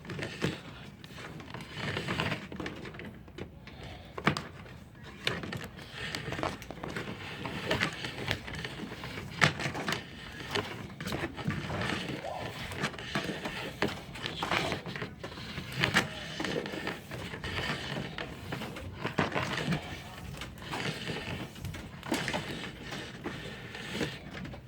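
Camera cable being fed through a wall cavity by hand: irregular rustling and scraping with scattered light knocks and clicks.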